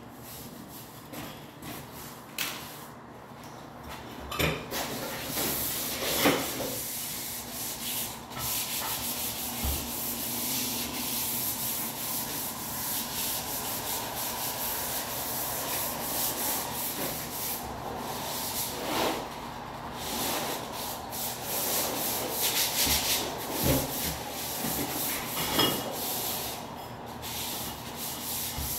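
Sanding of a wall surface: a steady scratchy rubbing that starts a few seconds in and keeps going. It is broken by a few short knocks as floor tiles are set.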